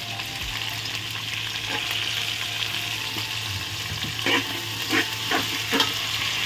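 Shredded cabbage and carrots sizzling in hot oil in a metal pot while being stirred with a metal spoon. Around two-thirds of the way through, the spoon scrapes and clinks against the pot four times.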